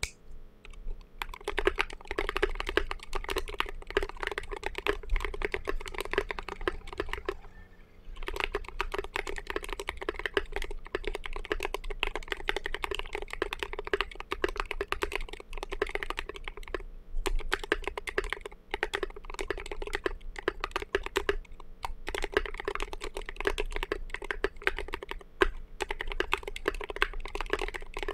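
Continuous fast typing on an RM.6 mechanical keyboard fitted with Thic Thock Marshmallow linear switches and Signature Plastics SA-profile Snow Cap keycaps: a dense run of keystrokes, with a short pause about eight seconds in.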